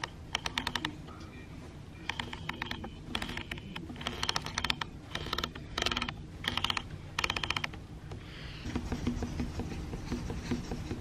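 About eight short bursts of rapid mechanical clicking, ratchet-like, spread over roughly eight seconds, followed by a softer, lower rustling noise near the end.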